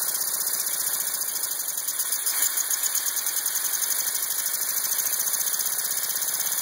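Small handmade model steam engine running steadily on compressed air, giving rapid, even hissing puffs of exhaust air.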